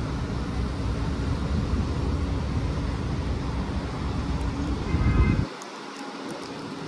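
Street traffic at an intersection: an MTA city bus and cars idling with a steady low rumble. About five seconds in there is a brief high squeal, then the low rumble drops away suddenly, leaving quieter street noise with a few clicks.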